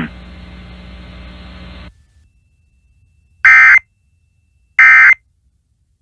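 Steady hiss with a low hum that cuts off about two seconds in. After a pause come two short, loud bursts of EAS/SAME digital data tones, a bit over a second apart, each about a third of a second long. These are the End-of-Message code that closes an Emergency Alert System broadcast.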